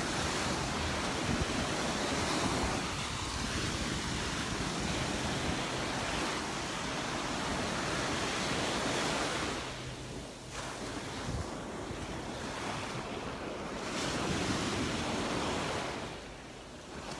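Gulf of Mexico surf breaking and washing up the beach, the rush swelling and easing as waves come in, with wind buffeting the microphone.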